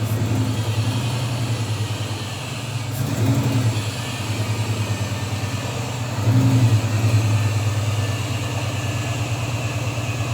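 A motor running steadily with a pulsing low hum, like an engine at idle, swelling briefly about three seconds in and again at about six and a half seconds.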